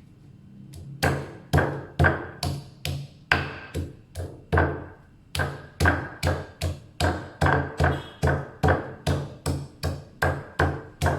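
Lemongrass stalks being bruised by repeated blows, a run of sharp knocks starting about a second in at two to three a second, quickening in the second half.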